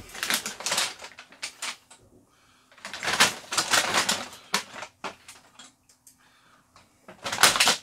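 Hard plastic storage bins clattering and knocking together as they are shifted and pulled from a stack. The clatter comes in three bursts, the loudest near the end.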